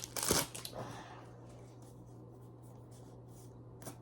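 Booster-pack foil and cards handled: a short rustle in the first second, then quiet with a faint low hum and a small click near the end.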